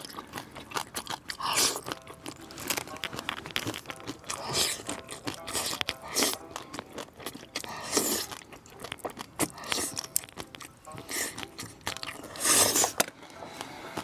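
A person chewing and crunching a mouthful of spicy fish, bones included, in irregular crunches with a few louder bursts; the loudest comes near the end.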